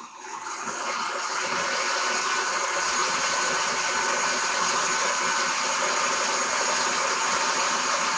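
Countertop blender switched on, its motor spinning up over about a second and then running steadily as it churns a thick butternut squash and coconut milk purée.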